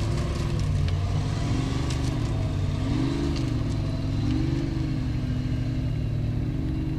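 Formula Offroad buggy engine running hard under load on a steep climb, its pitch rising and falling about once a second as the throttle is worked.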